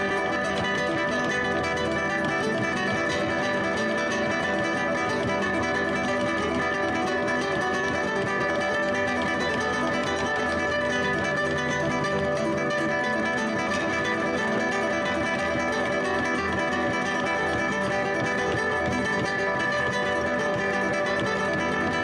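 Background music: an instrumental piece of plucked guitar, playing at a steady level.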